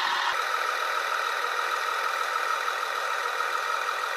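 Märklin LINT model railcar running on the track, its onboard sound decoder playing a diesel railcar engine sound through a small loudspeaker. The result is a steady, thin, hissy drone with no bass.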